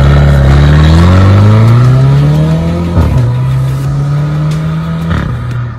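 Mercedes-Benz W205 C-Class AMG with an A Performance full catback valved exhaust accelerating hard away from a standstill: the exhaust note rises steadily, breaks for a gear change about three seconds in, pulls again in the next gear, shifts once more near the end and fades as the car moves off.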